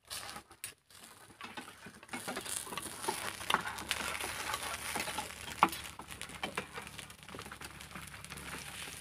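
Batter sizzling in the cups of a cake mould over a wood fire, with irregular light clicks and scrapes of a spoon lifting the cakes out. The sizzle grows about two seconds in, and one click near the middle is sharper than the rest.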